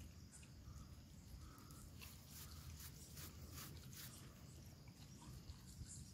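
Near silence: faint outdoor night ambience with a few soft clicks.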